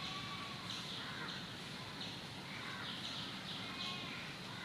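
Faint bird calls, a few short scattered calls, over quiet background noise.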